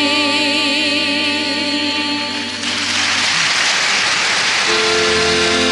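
A woman's voice holding a long sung note with vibrato at the end of the carol's refrain line, over folk band accompaniment. About two and a half seconds in the voice stops, a hissing wash of noise fills a couple of seconds, and then the band carries on with steady instrumental chords.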